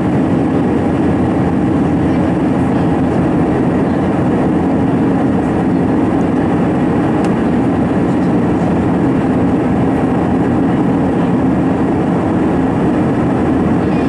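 Steady cabin noise inside an Airbus A320-214 on descent: its CFM56 turbofan engines running and air rushing past the fuselage, a deep, even rushing sound that does not let up.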